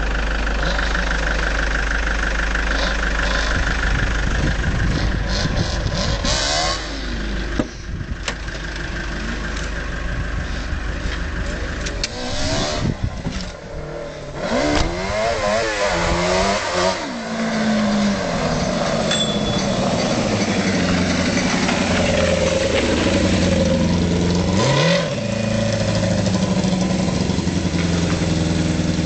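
A motor vehicle engine running steadily, revved up and down several times in the middle and once more, briefly, near the end.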